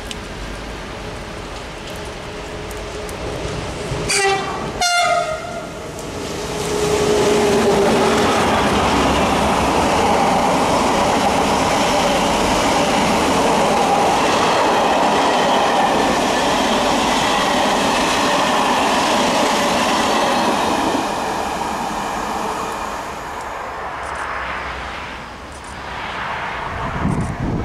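SNCF BB 22200 electric locomotive sounding two short horn blasts, then its train of flat wagons and coaches passing close by with a loud, steady rush of wheels on rails that lasts about fifteen seconds before easing off. Near the end, another train approach is heard building.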